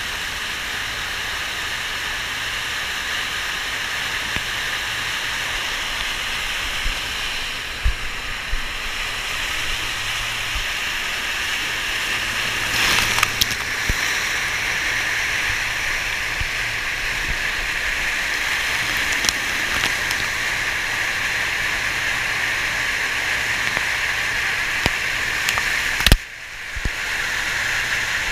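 Loud, steady rush of water from a FlowRider sheet-wave machine pouring up its slope, heard close to the churning surface. About halfway through there is a burst of louder splashing as a bodyboarder rides close past, and near the end the sound drops out suddenly for a moment.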